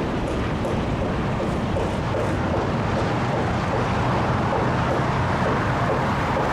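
Steady road traffic noise: a continuous rushing hum of passing vehicles, with no distinct events.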